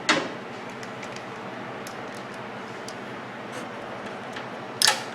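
Two sharp clicks of parts or a screw being handled during reassembly, one at the start and one near the end, over a steady background hiss.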